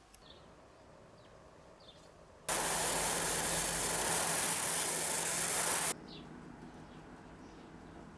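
A loud, steady rushing hiss with a faint low hum under it. It starts suddenly about two and a half seconds in and cuts off about three and a half seconds later.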